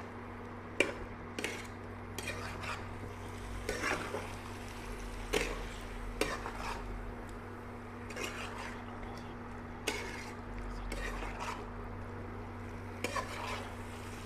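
A spoon stirring curry gravy with potatoes and eggs in a cooking pan, with irregular knocks and scrapes of the spoon against the pan over a faint sizzle.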